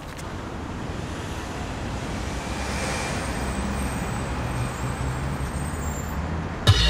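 Road traffic noise: a steady low rumble of passing vehicles that slowly grows louder. Music comes in just before the end.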